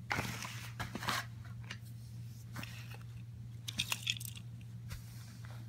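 Handling noise from a small toy train engine and tender turned in the hands: fabric rustling and a few light clicks, loudest near the start, about a second in and about four seconds in, over a steady low hum.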